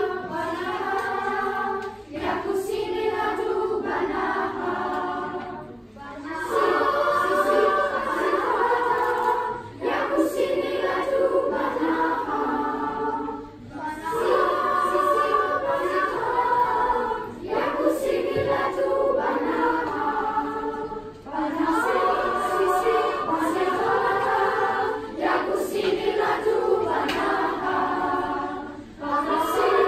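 Young choir of children and teenagers singing together, in phrases of a few seconds with short breaths between lines.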